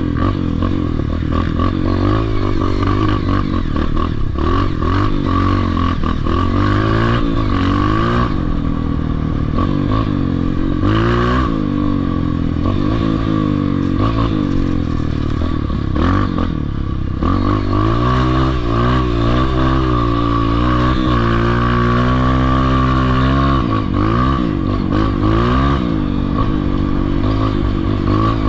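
Dirt bike engine being ridden hard on a motocross track, its pitch climbing and dropping again and again as the rider opens and closes the throttle and changes gear, with some rattling from the bike.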